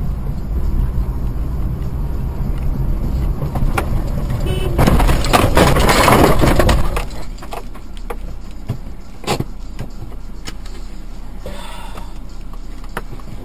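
Car driving with steady road and engine rumble, then about five seconds in a loud crash lasting about two seconds as the car goes off the road. After it comes a lower steady noise with scattered small clicks and rattles.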